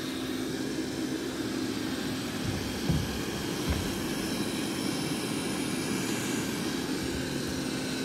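Roborock S5 Max robot vacuum running with a steady whir and a constant low hum. Two soft low knocks come about three seconds in.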